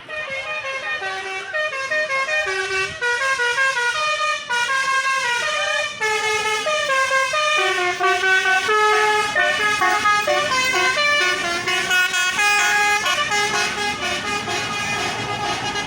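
Bus telolet horn, a bank of multi-tone air horns, playing a quick melody of short notes that step up and down.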